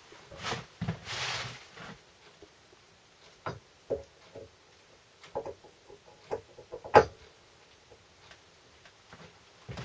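Scattered clicks and knocks of metal parts being handled at a bench vise as a homemade steel socket is fitted onto a carburettor fitting, with one sharp, louder knock about seven seconds in.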